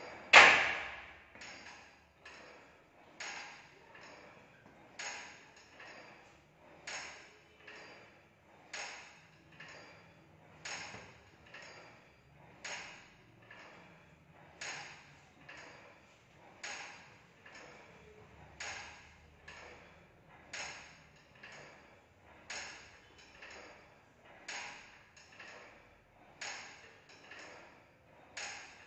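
Cable pulley machine's steel weight-stack plates clinking on each repetition, about once a second, alternating louder and softer as the stack is lifted and lowered, with one much louder metallic clang just after the start.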